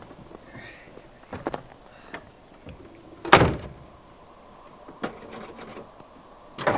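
An old sedan's driver door is shut with a single solid slam about halfway through. A few faint knocks and clicks come before and after it.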